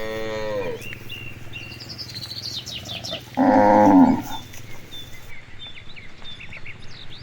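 Cattle mooing. One moo falls away in pitch in the first second, and a second, louder, short moo comes about three and a half seconds in. Birds chirp throughout.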